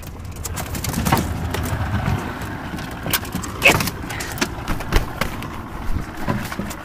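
Scattered knocks, thumps and clattering in an aluminum boat as a dog and a Canada goose scuffle, with the goose's wings flapping near the end.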